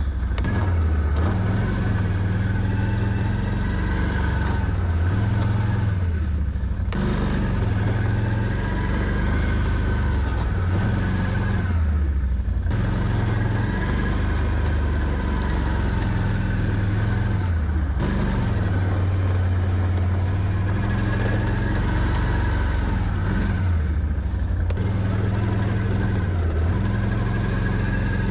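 Can-Am Outlander 650 ATV's V-twin engine running under load while plowing snow, its engine speed rising and falling again and again as the machine pushes forward and backs up.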